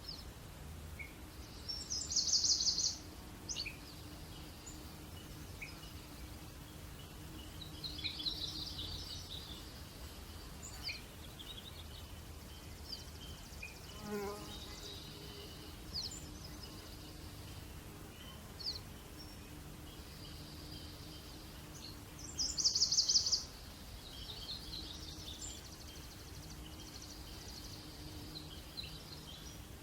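Several wild birds singing: two loud, rapid high trills, one early and one about three quarters through, among scattered chirps and warbled phrases, with a lower falling call about halfway. A steady low hum runs underneath.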